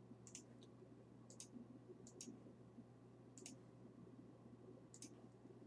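Faint computer mouse clicks, about five single and double clicks spaced a second or so apart, over a steady low hum.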